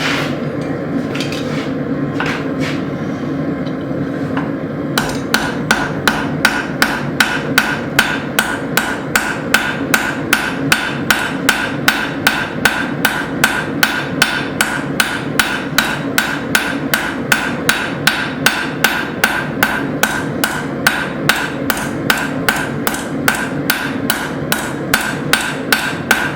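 Blacksmith's hand hammer forging hot square steel stock on an anvil. A few scattered blows come first, then from about five seconds in a steady run of blows, roughly two to three a second, each with a bright ring, over a steady low rushing noise.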